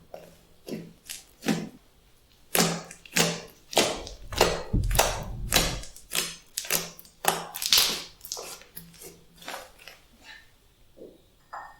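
Glossy slime being stirred and squished, making a run of irregular wet clicks and pops, thickest and loudest in the middle.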